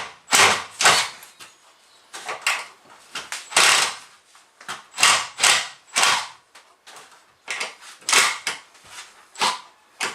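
Work handling noise: a dozen or so short, irregular scrapes and knocks of tools and framing lumber being moved, with no power tool running.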